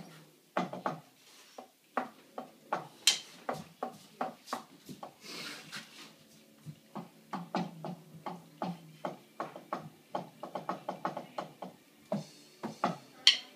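Wooden drumsticks tapping and clacking on the rubber pads of an electronic drum kit, struck in an uneven, irregular beat. The hits come faster and closer together from about ten seconds in.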